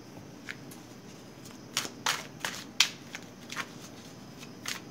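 A deck of tarot cards being shuffled by hand: a string of short, crisp card clicks and slaps, a few a second, starting about a second and a half in.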